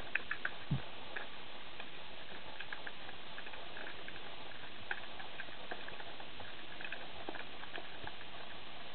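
Underwater ambience: a steady hiss with scattered sharp clicks and ticks throughout, and one low thud just under a second in.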